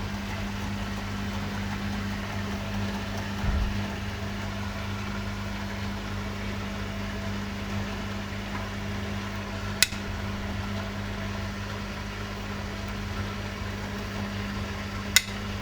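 Beko washing machine running with a steady, even hum. A low thump comes about three and a half seconds in, and sharp clicks come about ten seconds in and again near the end.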